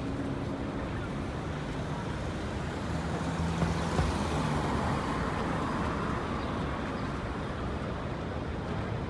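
City street traffic: the steady noise of cars and trucks on a busy avenue, with a low engine hum and a couple of light knocks about midway.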